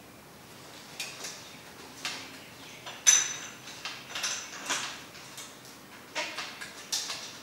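Light metallic clicks and knocks from a mountain bike being handled in a repair stand, coming irregularly about once a second, the sharpest about three seconds in with a brief ring.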